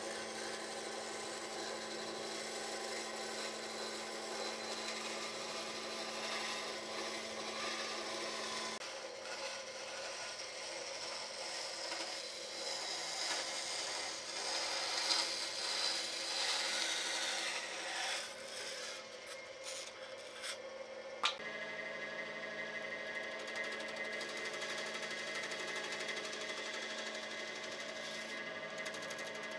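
Bench bandsaw running with a steady motor hum, its blade cutting through thick wood as the piece is fed along a curve. The sound changes abruptly twice, about 9 and 21 seconds in.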